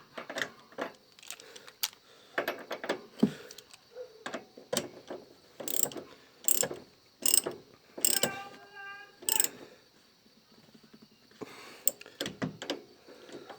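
Hand tool tightening the nut on top of a car's shock absorber, a run of irregular metallic clicks and clacks. The tightening takes up play between the nut and the worn top mount, the cause of a clunk in the front suspension.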